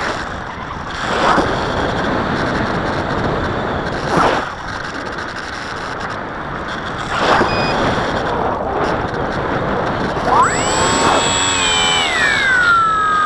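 Wind rushing over the onboard camera microphone of a Bixler 3 FPV model plane, swelling briefly three times. About ten seconds in, the plane's electric motor spins up with a rising whine, then eases back to a lower steady whine alongside a constant high-pitched tone.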